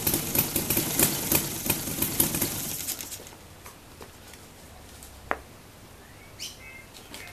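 Saito FG-60 R3, a 60 cc three-cylinder spark-ignition petrol radial model-aircraft engine, idling with an even beat. It is cut off about three seconds in and dies away, leaving quiet.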